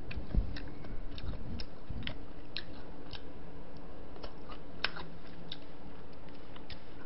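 Close-up eating sounds of a person chewing a mouthful of spicy braised seafood with a mussel in it: irregular sharp wet mouth clicks and smacks, with one louder click a little before the five-second mark.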